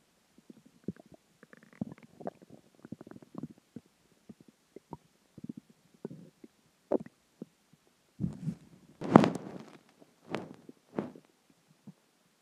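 Human stomach growling and gurgling as it digests a meal, water and gas. A long run of small, irregular gurgles is followed by several louder rumbles near the end, the loudest about nine seconds in.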